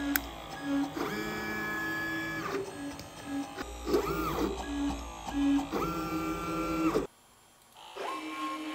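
Stepper motors of a desktop pick-and-place machine driving its head from part to part: a run of whining moves, each rising in pitch, holding steady, then falling away, with short lower tones in between. The sound drops out briefly about seven seconds in, then another move starts.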